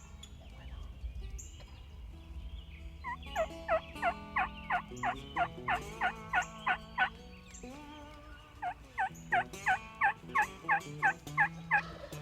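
Wild turkey yelps: two runs of about a dozen sharp falling notes each, about three a second, with a short pause between them. Soft background music runs underneath.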